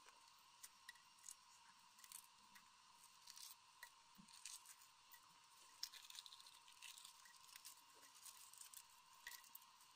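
Faint crackling and small clicks of a hard-boiled egg's shell cracking and being peeled off by gloved fingers, with bits of shell dropping onto a wooden cutting board.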